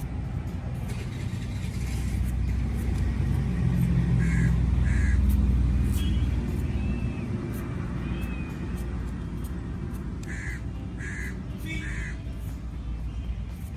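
Short harsh bird calls, twice about four seconds in and three times near ten seconds, over a low rumble that swells through the middle and then fades.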